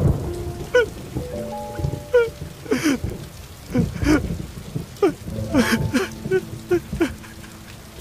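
A man sobbing, in short falling cries and gasping breaths, over steady rain, with soft sustained music underneath.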